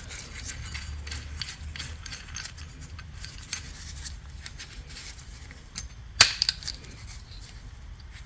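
Small metallic clicks and ticks of a bolt and its washer being handled, as the washer is spun off the bolt's threads by hand. A sharper clink comes about three and a half seconds in and a quick cluster of clinks about six seconds in, over a low steady hum.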